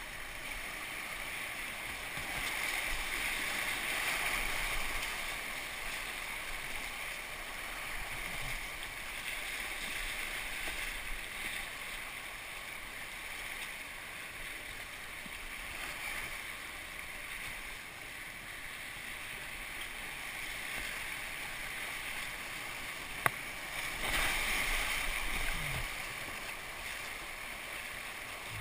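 Rushing whitewater of shallow river rapids around a moving kayak, a steady watery rush that swells a couple of seconds in and again near the end. A single sharp click comes just before the second swell.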